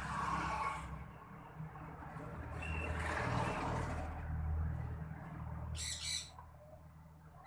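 Rustling and crunching of coarse coconut-husk potting mix as hands press it around a plant's stem in a clay pot, over a steady low hum. A bird gives a brief call about six seconds in.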